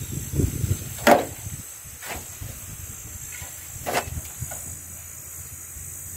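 Piles of cut weeds and grass rustling as they are scooped up with a long-handled hoe and tossed into a metal wheelbarrow, with a few sharp knocks of the tool, the loudest about a second in.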